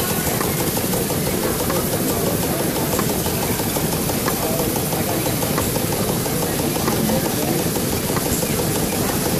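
Steady mechanical din of small model engines running, with faint ticks about once a second.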